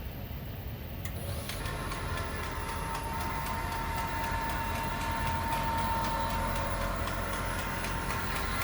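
Senior LE disc repair machine running a resurfacing cycle on a scratched disc: a steady motor hum, with a level whine that comes in about a second and a half in and holds, and faint regular ticking.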